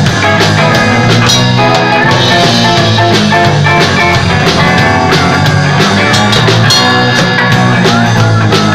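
Live rock band playing: drum kit keeping a steady beat under bass guitar and electric guitars.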